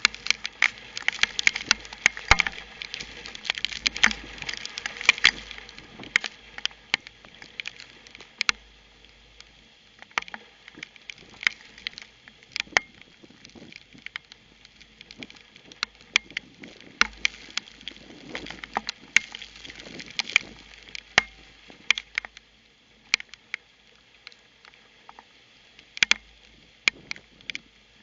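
Rain from a severe thunderstorm pattering on a security camera's housing, heard as many sharp irregular clicks over a steady hiss. The clicks come thickly for about the first six seconds, then thin out to scattered drops.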